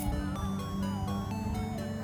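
Background music: held synth notes changing in steps.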